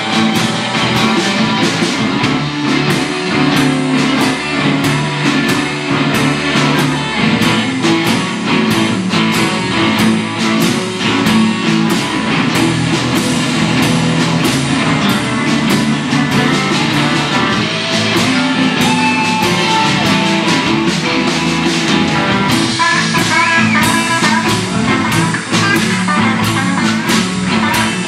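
Live electric blues band playing an instrumental stretch with no singing: electric guitars over bass and drums keeping a steady beat.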